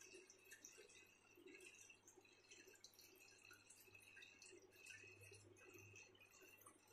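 Faint water dripping and trickling over a steady low hum, from an aquarium's filter running.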